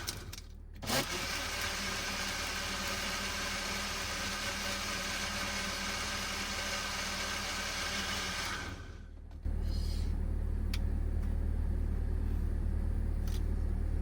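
A steady machine whirr with faint steady tones, briefly broken just after the start. It cuts out about nine seconds in and gives way to a louder low steady hum with a few sharp clicks.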